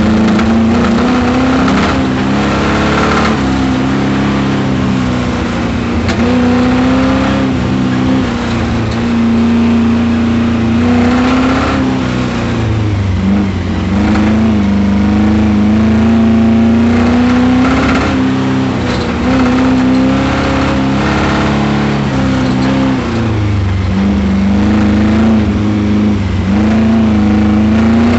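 Camaro race car engine revving up and down repeatedly under hard driving, its pitch rising and falling every few seconds. It is making lots of noise under the hood, which the owner puts down to a spun bearing.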